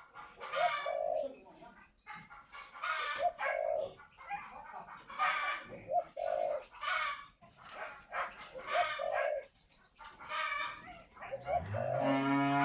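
Spotted dove cooing its breeding advertising call, repeated about every two seconds. A cow moos near the end.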